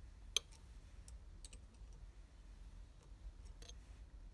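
Faint, scattered clicks of a ratchet spanner working a threaded stud in the engine's damaged manifold mounting thread, with one sharper click about half a second in.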